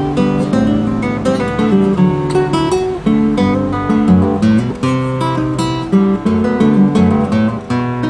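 Gotar G4s classical guitar with a solid spruce top, played fingerstyle: a plucked melody over sustained bass notes, in a continuous flow of notes.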